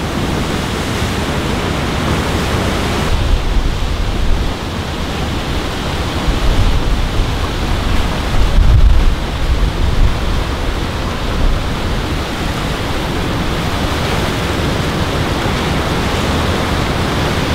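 Whitewater rapids of a mountain river rushing steadily and loudly, swelling louder for a few seconds in the middle.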